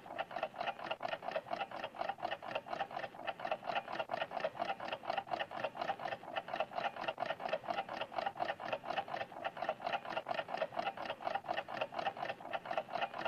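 Cartoon clock-ticking sound effect: a rapid, even ticking at about five ticks a second, running steadily.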